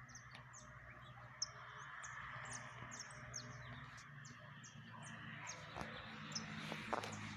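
Small songbirds chirping and singing, many short high chirps overlapping, with a faint low steady hum underneath.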